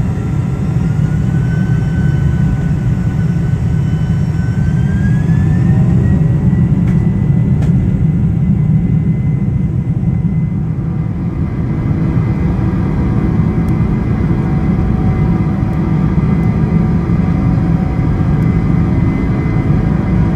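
General Electric CF6-80C2 turbofans of a Boeing 747-400 at takeoff power, heard from inside the cabin during the takeoff roll. A heavy low rumble carries a thin whine that rises in pitch about five seconds in as the engines spool up, then holds steady.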